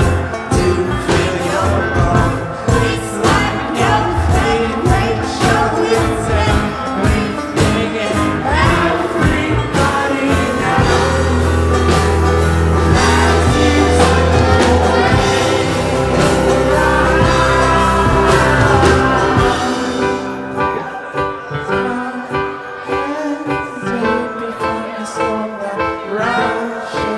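A live rock band playing electric guitars with sung vocals and a steady beat. Around eleven seconds in a low note is held for several seconds. After about twenty seconds the music thins out and gets a little quieter.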